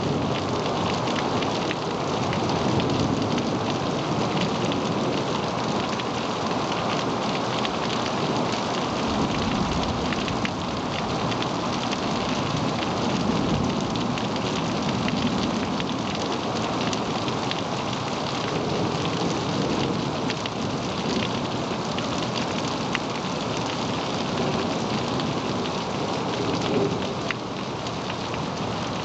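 Steady rain falling in a thunderstorm, with many individual drops ticking on nearby surfaces. Low rolls of thunder swell up about a third of the way through and again around the middle.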